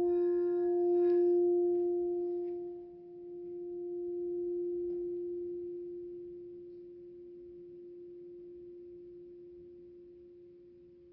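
Green crystal singing bowl ringing after a mallet strike: one steady low tone with fainter higher overtones. It swells and ebbs in slow waves while it gradually dies away.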